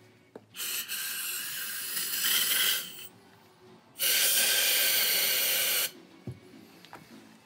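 An aerosol can of parts-cleaner spray hissing in two long bursts, the second louder, as it is sprayed into an idle air control valve to flush out carbon soot.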